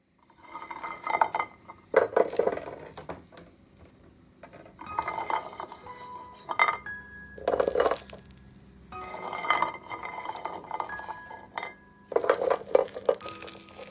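Dishes and cutlery clinking and clattering in bursts every few seconds, some strikes leaving short ringing tones.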